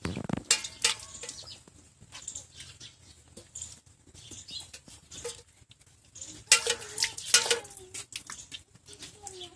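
Hand milking a cow: short streams of milk squirting from the teats into a steel pail, giving a run of quick, irregular spurts. About two-thirds of the way through, a few louder sharp sounds come with brief pitched calls.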